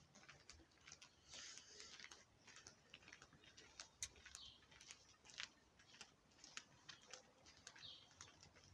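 Near silence with faint, scattered, irregular clicks and ticks.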